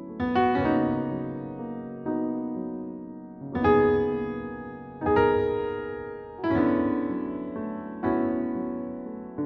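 Background music on a piano-like keyboard: soft chords struck about every second and a half, each one dying away before the next.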